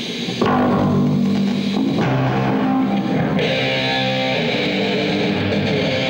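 Distorted electric guitar and bass guitar played loudly at a rock band's soundcheck, starting suddenly about half a second in and holding sustained notes through the hall's PA.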